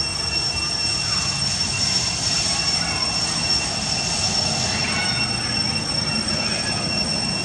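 Steady high-pitched insect drone, the whine of cicadas calling without a break over a low outdoor hum.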